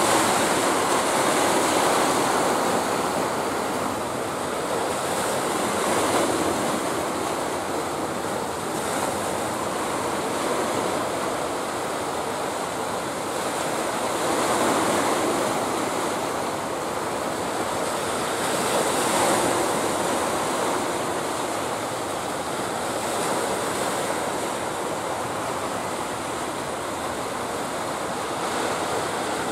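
Sea surf breaking and washing on a beach: a steady rushing wash that swells up every several seconds as waves come in.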